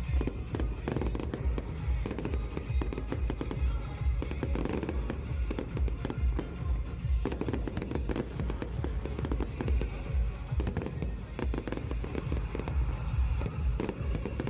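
Fireworks going off continuously, a rapid stream of bursts and crackles over a low rumble, with music playing along.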